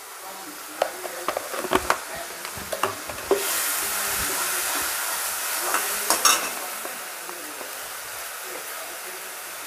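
Onion, garlic and green-chilli paste sizzling in oil in a wok as a flat spatula stirs in freshly added chilli powder, with the spatula clicking and scraping against the pan. The sizzle swells to a steady hiss from about three seconds in, then eases off a few seconds later.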